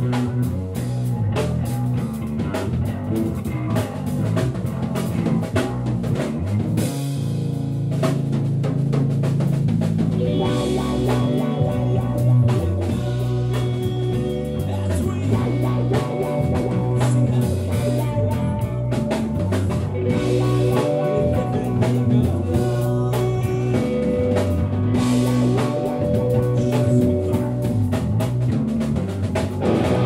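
Rock band playing live: distorted electric guitars over a drum kit in a steady instrumental passage, the sound getting fuller about ten seconds in.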